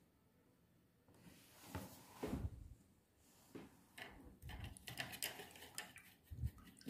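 Faint, irregular handling noises of painting things being moved about on a table: soft knocks and scrapes, with a run of small clicks and clinks after the middle.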